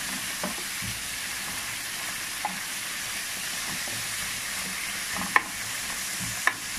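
Chopped vegetables (bell peppers, carrots, broccoli) sizzling steadily in hot oil in a metal pan as they are stir-fried with a wooden spatula, with two sharp knocks of the spatula against the pan near the end.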